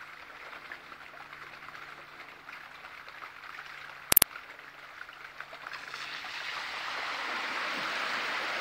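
Shallow stream flowing, with a sharp click about four seconds in. From about five and a half seconds on, a bicycle rides through the water and the splashing grows steadily louder as it comes closer.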